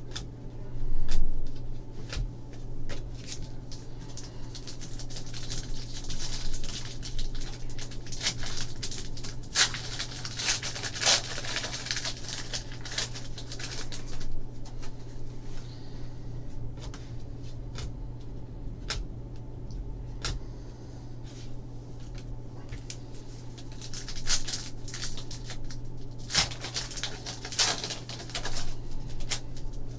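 Trading cards being handled and slid against one another, with a foil card-pack wrapper crinkling and tearing open. The crinkling comes in two louder spells, around ten seconds in and again near the end, over a steady low hum.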